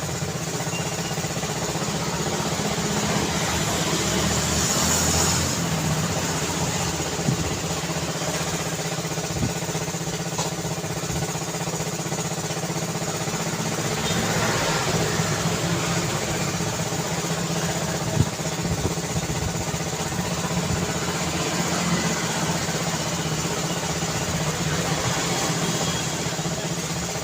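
Road traffic: vehicle engines running and idling in a steady hum, swelling a little a couple of times. There is a short sharp knock about seven seconds in and a louder one about eighteen seconds in.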